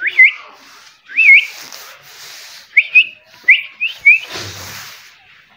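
A pet parrot whistling: a series of about seven short, rising, wavy whistle notes, the later ones coming in quicker succession.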